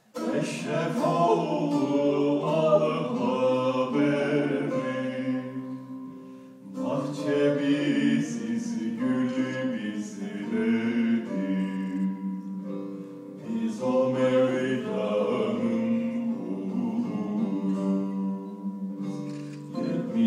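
Male voices singing a Turkish folk song to plucked long-necked lutes (bağlama), starting suddenly and going on in phrases with short breaks between them.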